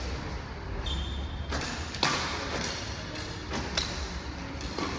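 Badminton rally: about four sharp hits and footfalls from rackets on the shuttlecock and players' feet on the tiled floor, the loudest about two seconds in, with a brief high shoe squeak about a second in, echoing in a large hall.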